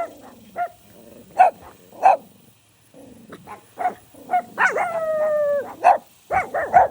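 Dogs barking at a deer in separate sharp barks, with one long drawn-out cry near the middle and a quick run of barks near the end.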